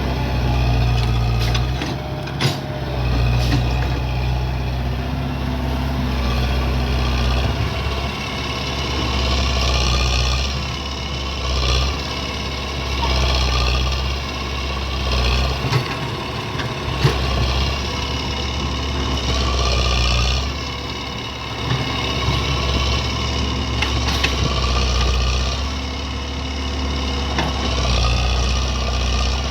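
Hydraulic excavator working: its diesel engine running steadily, with a hydraulic whine that rises and falls every few seconds as the arm and bucket move, and a few sharp knocks.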